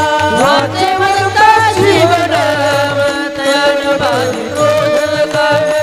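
Varkari kirtan music: a held melody that slides between notes, with hand cymbals (taal) and a low drum beat keeping time.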